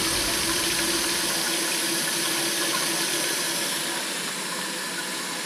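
Kitchen faucet running a steady stream into a stainless steel sink and down the drain, with a faint steady hum under the water that fades out about halfway. The tap is run to test the drain just cleared with a drain snake.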